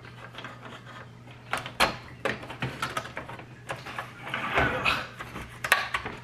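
Plastic parts of a laser printer fuser unit being handled and fitted together: a few sharp clicks and knocks, then a scraping stretch about four seconds in, as the spring-loaded cover is pressed into place.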